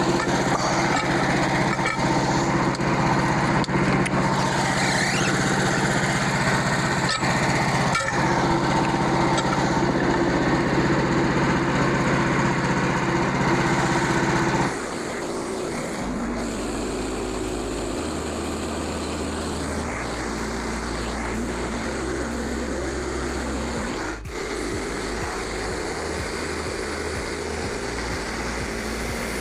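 A portable band sawmill's small gas engine running steadily at high throttle. About halfway through, the engine sound stops abruptly, leaving a quieter sound with a low hum that shifts in steps.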